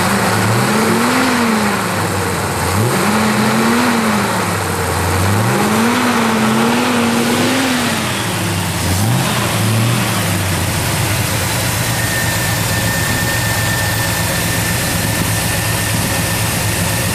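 1968 GMC pickup's carbureted engine, fitted with an HHO generator, revved about four times, pitch climbing and falling back, one rev held for a couple of seconds, then settling to a steady idle about ten seconds in. A thin high steady whine joins in near the end.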